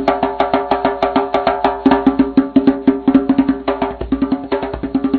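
Background music: a quick clicking percussion beat over steady held tones, getting quieter near the end.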